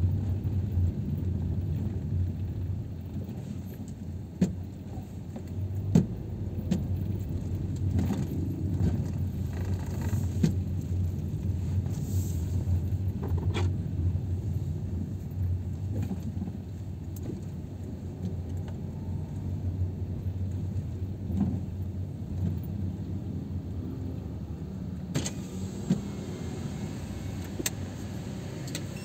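Car interior noise while driving slowly: a steady low rumble of engine and tyres, with scattered sharp clicks and light rattles from the car's interior.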